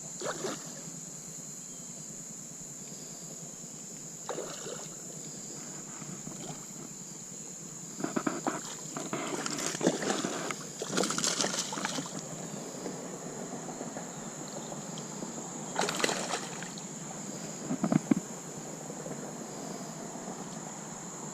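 Water sloshing and splashing against a kayak in irregular bursts, loudest around the middle and near the end, over a steady high-pitched insect chorus.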